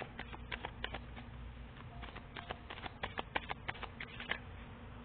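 Tarot cards being shuffled and handled: a run of irregular clicks and light slaps that stops about four seconds in.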